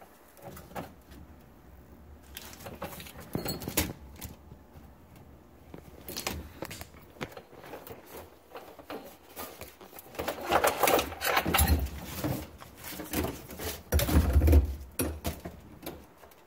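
Handling noise as a throttle cable is worked through a jet ski's engine compartment: irregular rustling, scraping and clicks, with a run of louder knocks and thumps about ten seconds in and again near the end.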